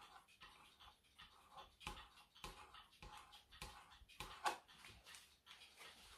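Faint scraping and rubbing of a plastic credit card's edge drawn in short, irregular strokes across an enamel clock chapter ring, smoothing and contouring wax-like enamel filler paste to the dial's surface. A sharper click stands out about four and a half seconds in.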